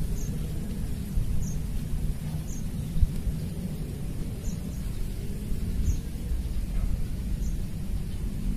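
Wind buffeting the microphone as a steady low rumble, with a short high chirp repeating about once a second.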